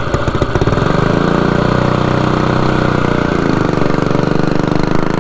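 Predator 212 single-cylinder four-stroke engine of a mud motor running just after starting. Its note rises about a second in and then holds steady, dipping briefly a little past halfway before picking up again.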